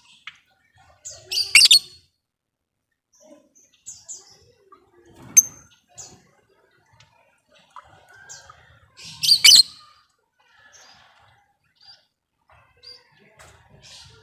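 Lovebirds calling: two loud, shrill bursts of chatter, one about a second and a half in and one around nine and a half seconds, with scattered short chirps in between.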